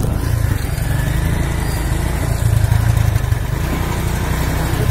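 Motorcycle engines running steadily at low speed, heard from the seat of a moving motorcycle with other motorcycles riding close by.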